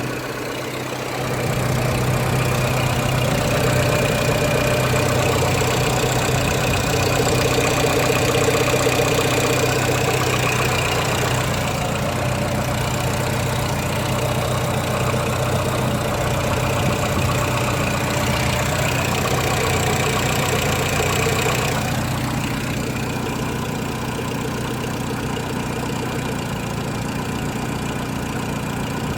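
Renault Mégane 1.4 four-cylinder petrol engine running with a knock. Its sound steps up about a second in and drops back a little about three-quarters of the way through.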